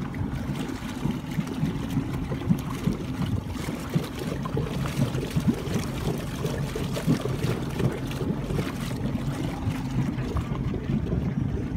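Monterey 180 bowrider's sterndrive engine idling, with a steady low burble as its exhaust bubbles out through the drive leg into the water.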